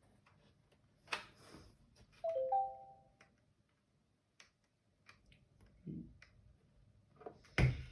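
A short two-note electronic chime about two seconds in, the loudest sound here. Around it come scattered clicks and knocks of small plastic parts being handled.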